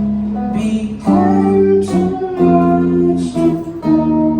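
Background music: strummed acoustic guitar chords, changing about once a second.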